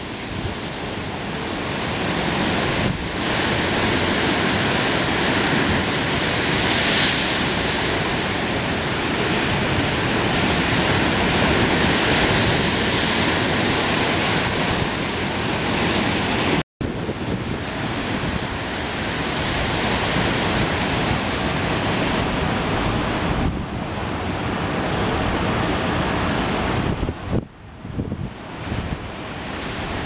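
Wind buffeting the microphone over a steady rush of ocean surf. The sound cuts out completely for an instant partway through.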